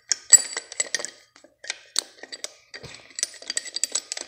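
Steel parts clinking and rattling as a bearing puller is handled and fitted onto an alternator: rapid light metallic clicks with short rings, in two clusters with a brief pause between.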